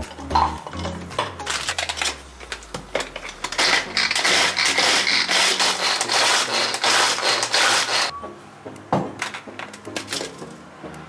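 Clicks and rustling, then an electric food processor runs for about four and a half seconds, grinding sultani biscuits into crumbs, and stops abruptly; a few clicks follow as the bowl and lid are handled.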